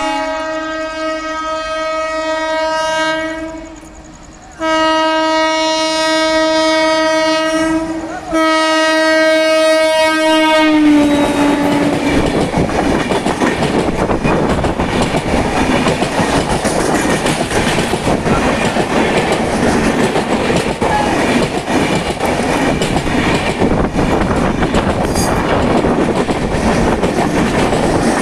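Twin-tone horn of a WAP-7 electric locomotive sounding three long blasts, with a dip at about four seconds and a short gap near eight. Its pitch drops at about eleven seconds as the locomotive passes. Then the express train's coaches run past with a steady rumble and clickety-clack of wheels on the rails.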